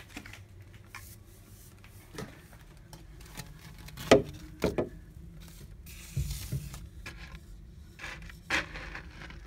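A length of PVC pipe being handled and pushed down through a hole in a wooden floor into a water-filled pit, to gauge the depth of standing water. Scattered knocks and scrapes of plastic against wood sound throughout, the sharpest about four seconds in, with a couple of dull thumps around six seconds.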